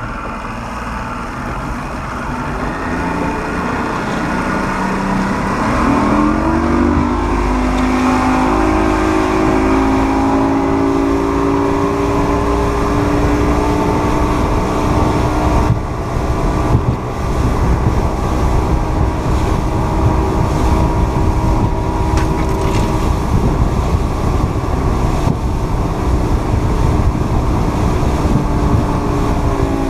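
Boat's outboard motor running under way, its pitch rising about six seconds in and then holding steady at running speed, over a steady rush of wind and water.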